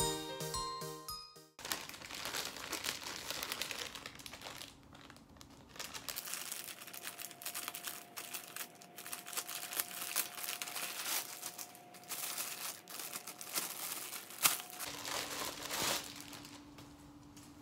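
Plastic packaging crinkling and rustling as a plastic mailer bag is cut open with scissors and the clothing inside is pulled out of its clear plastic wrapping. A short bit of music cuts off about a second and a half in.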